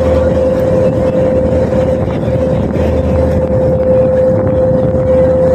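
Small passenger ferry's engine running steadily under way: a constant drone with a steady whine over it, mixed with rushing water.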